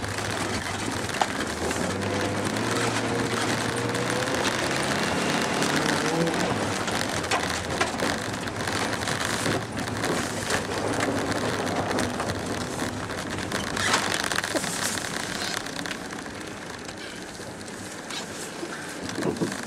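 Ford Escort diesel van's engine running while its tyres crunch and hiss through snow, heard from inside the cab. The engine note rises slightly in the first few seconds, then sinks under the tyre-and-snow noise, which eases off as the van slows. A few knocks come near the end.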